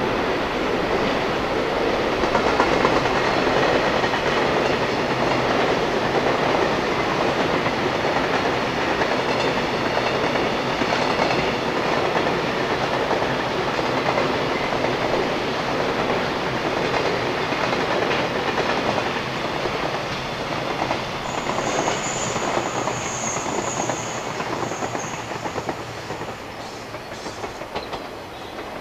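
Long freight train of container flatcars rolling past, wheels clattering steadily over the rail joints. A brief high wheel squeal comes about three-quarters of the way through, and the rolling noise fades near the end as the last wagons go by.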